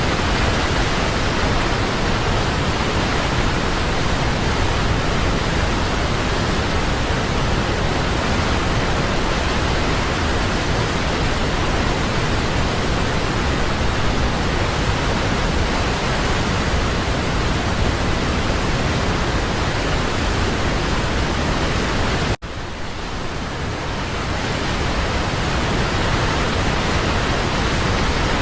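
Waterfall rushing steadily. Near the end it cuts out for an instant, then comes back quieter and swells back to full over a couple of seconds.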